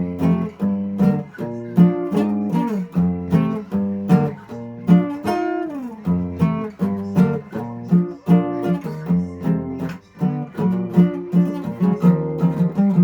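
Instrumental music: an acoustic guitar picking a steady run of notes, about three or four a second.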